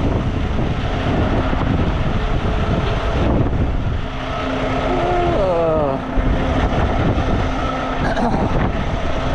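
Semi truck running, with heavy wind noise on the microphone. A short whine falls in pitch about five seconds in.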